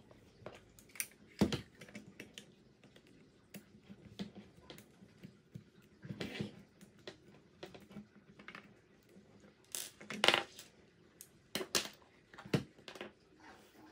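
Hands taking apart the plastic chassis of a Tamiya TL01 RC car with a screwdriver: scattered clicks, rattles and knocks of plastic parts and the tool, with parts set down on a wooden table. The loudest knocks come about a second and a half in and about ten seconds in.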